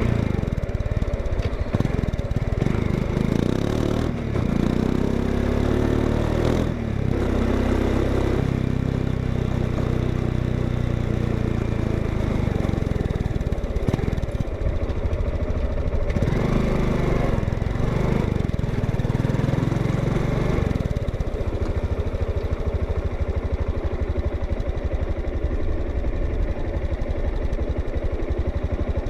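Honda XRE 190's single-cylinder engine running through its exhaust, the note rising and falling a few times as engine speed changes, with steady running in between.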